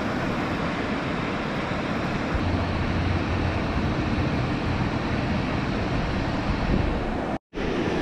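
Steady rush of fast-flowing river water, a constant even hiss with no separate splashes, broken by a brief dropout a little before the end.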